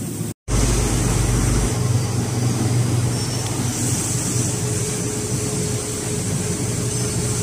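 Steady workshop machinery hum: a constant low drone with a higher steady tone over hiss. It cuts out for an instant about half a second in, then carries on unchanged.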